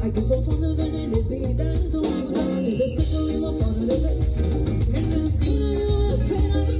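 Live Latin band playing an upbeat song with a steady beat.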